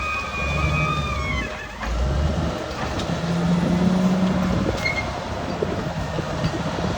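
Caterpillar D6R XL bulldozer's diesel engine working under changing load, with a high whine that falls away about a second and a half in and a few scattered clanks.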